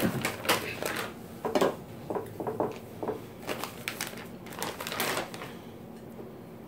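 Plastic bag of ravioli crinkling and rustling in irregular crackly bursts as the ravioli are pulled out and handled. It stops a little after five seconds in.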